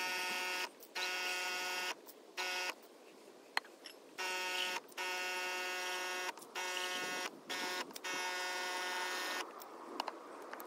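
Small electric water pump of a RinseKit portable sprayer whining with a spray of water. It starts and stops in short spurts of up to a second and a half as the spray trigger is pressed and let go, then falls quiet about a second before the end.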